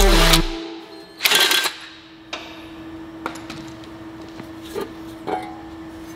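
Background music cuts off, then a cordless drill-driver spins briefly on a bolt of the Honda K24's cast exhaust header, followed by a few light metal clinks as the header is worked loose and lifted off, over a faint steady hum.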